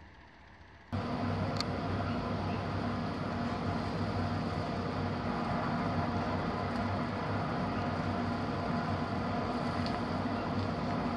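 Steady low machine hum with hiss, like a fan or motor running, starting abruptly about a second in and holding even throughout.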